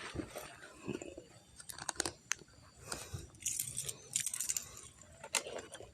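Scattered light clicks and metallic rattling, with a busier stretch of jingling about halfway through.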